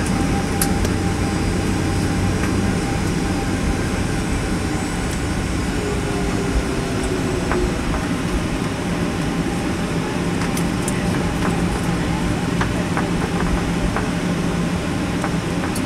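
Steady cabin noise inside a Boeing 737-800 with its engines running: an even hum and rumble, with a few faint clicks.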